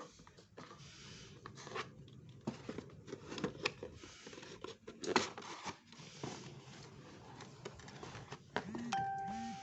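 Packaging being torn open by hand: tearing and rustling with scattered clicks and scrapes. A steady tone comes in near the end.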